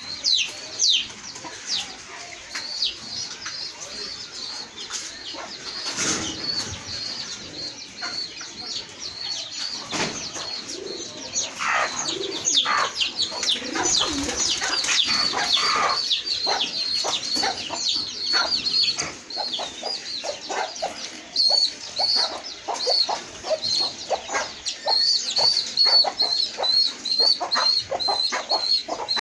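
Chickens clucking, with a constant stream of high, rapid peeping calls over the top.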